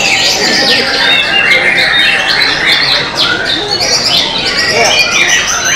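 White-rumped shama (murai batu) singing a loud, unbroken run of varied whistled phrases.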